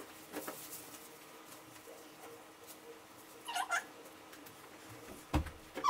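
Faint rustling as clothes are pulled on. About three and a half seconds in comes a short high-pitched call in two quick parts, and near the end a dull thump.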